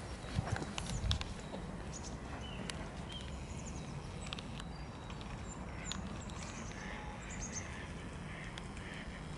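Pond-side ambience: small birds giving short high chirps here and there, and mallard ducks calling softly now and then, more often near the end, over a low steady rumble. A few low knocks come in the first second.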